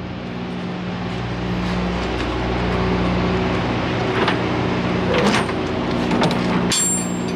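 A diesel truck engine running steadily, its hum growing louder. A few metallic clanks come in the second half as the trailer's rear-door lock-rod handle is worked.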